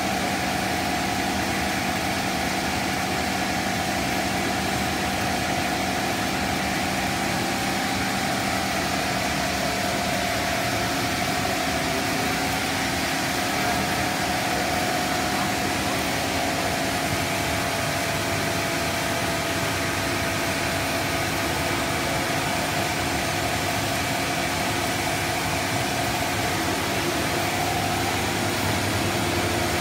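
Cast stretch film extrusion line running: a steady whir of machinery with a few constant tones from its motors and drives, holding one level throughout.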